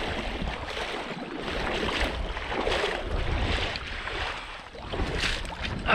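Shallow bay water sloshing and splashing as someone wades through it in uneven surges, with wind buffeting the microphone.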